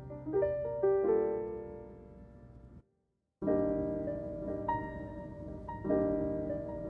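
Background piano music: slow, held notes and chords, cut by a short gap of complete silence about three seconds in.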